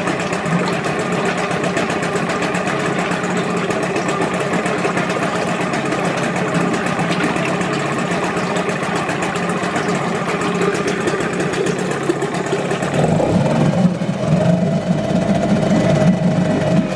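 Mariner 4 hp two-stroke outboard motor running steadily at idle, then speeding up about three-quarters of the way in and holding the higher revs. It is running on a rich 20:1 oil mix on its first run after 29 years in storage.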